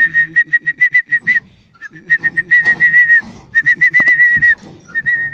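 Whistling at one high pitch, like a bus conductor's signal to a reversing driver. First a run of about eight rapid short blasts, then three longer held blasts, with a fainter low hum underneath.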